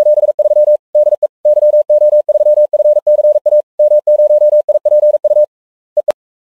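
Morse code sent as a single steady mid-pitched tone, keyed on and off in short and long pulses for about five and a half seconds, with two short pulses and a click just after six seconds.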